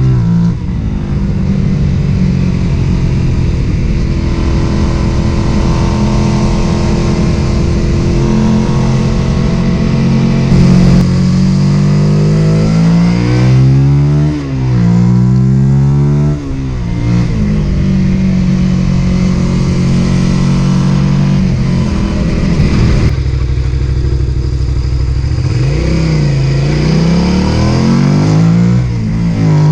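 Suzuki SV650's V-twin engine running, steady for long stretches and revved up and down in short blips around the middle and again near the end. The bike is being run to show a misfire.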